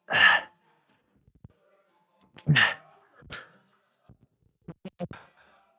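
A man's forceful, hissing exhales through clenched teeth as he strains through leg extension reps near failure: three hard breaths, the second with a grunt in it, then a few short clipped grunts near the end.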